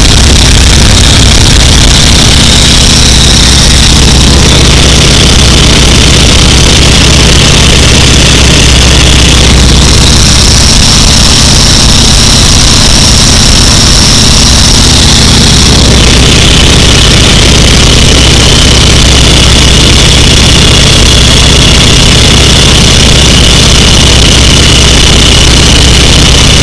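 A Boeing Stearman biplane's radial engine and propeller running steadily in cruise flight, a loud, even drone heard from the open cockpit along with rushing wind.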